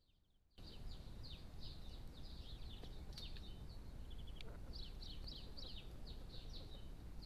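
Small songbirds chirping in a steady run of short, falling notes, over a constant low hiss from the trail camera's microphone; the sound cuts in about half a second in.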